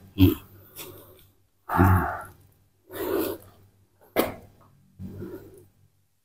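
A series of about five short breathy puffs from a person, with a sharp click about four seconds in.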